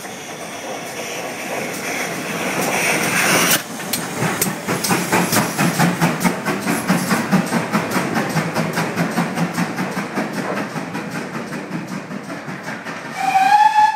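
GWR Hall-class steam locomotive 4965: a steam hiss builds as it approaches and breaks off abruptly about three and a half seconds in. Then wheels click steadily over the rail joints as the engine and tender pass close by, slowly fading. A short, loud high-pitched tone sounds near the end.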